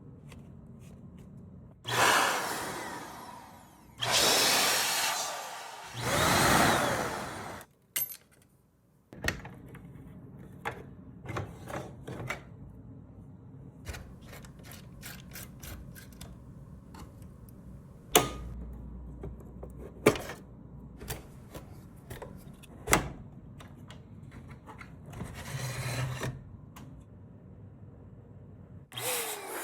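Tools and metal parts being handled while a Mac Pro is taken apart for a CPU upgrade. Three loud noisy bursts of a second or two each come near the start. After them comes a long scatter of sharp clicks and knocks, with a short rasping patch near the end.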